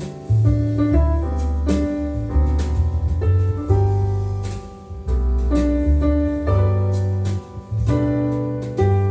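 Piano-led music with a deep bass line of long held notes that change about once a second, played back as a subwoofer and bookshelf speaker sound test.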